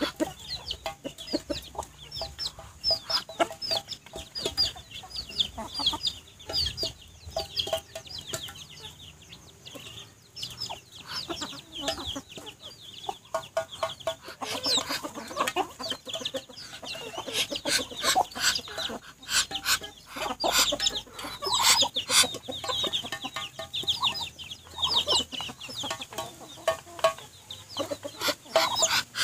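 Chicks peeping steadily in short, high, falling chirps over low clucking from the adult chickens, with sharp taps of beaks pecking in a metal feed bowl, busiest through the middle stretch.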